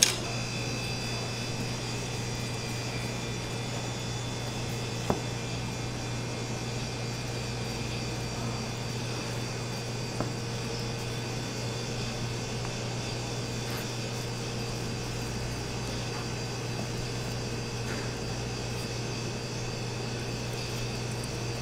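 Steady mechanical hum with a faint high whine, with a few single sharp knocks, about five and ten seconds in, of a kitchen knife reaching a plastic cutting board as a thick rolled omelette is sliced.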